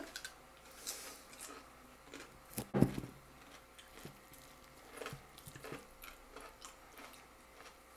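Close-up eating sounds: chewing, with small wet clicks as a whole roast chicken is torn apart by hand. A single dull knock a little under three seconds in is the loudest sound.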